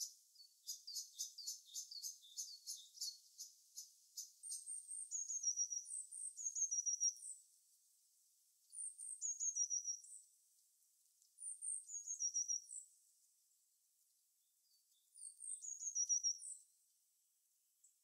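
Small songbirds singing high-pitched: a fast run of short repeated notes for the first few seconds, then a brief phrase of falling slurred notes given four times, about every three seconds.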